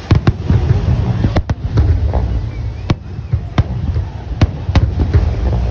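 Aerial fireworks shells bursting, about ten sharp bangs at uneven intervals over a continuous low rumble.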